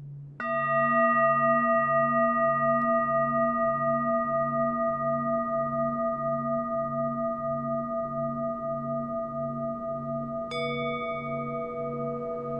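Relaxation music: a low, steadily pulsing drone, with a struck bell-like tone that rings on for seconds with a wavering hum, and a second strike near the end.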